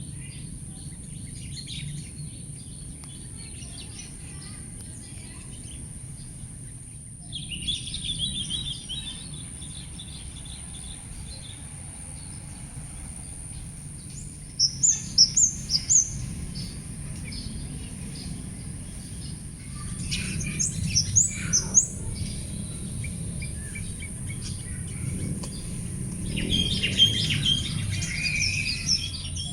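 Small birds chirping outdoors in several short bursts of quick high notes, some sweeping upward, over a steady low rumble of background noise.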